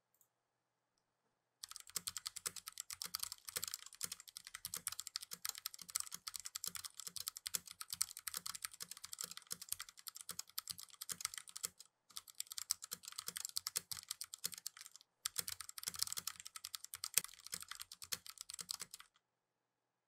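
Typing on a Royal Kludge RK84 mechanical keyboard in stock form, before any foam or stabilizer mods: a fast, continuous run of key clacks. It starts about two seconds in, pauses briefly twice, and stops about a second before the end.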